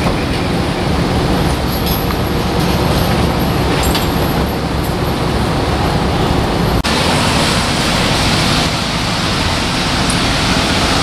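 Steady street-traffic noise with the low rumble of idling vehicles. It changes abruptly about seven seconds in and is hissier afterwards.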